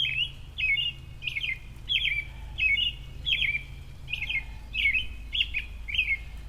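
A songbird repeating the same short chirping call over and over, about one call every two-thirds of a second, each call a quick falling-and-rising flourish.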